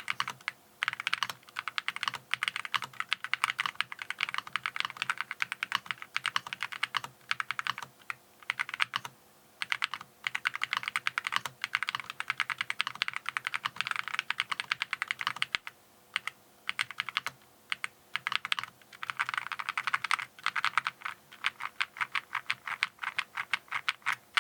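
Fast typing on a mechanical keyboard fitted with Akko V3 Cream Yellow linear switches: a dense run of clacky keystrokes in bursts, broken by a few short pauses.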